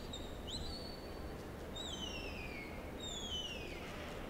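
Sheepdog handler's herding whistle commands: a quick rising note into a short held tone, then two long falling whistles, each under a second. These are signals directing the dog working the sheep.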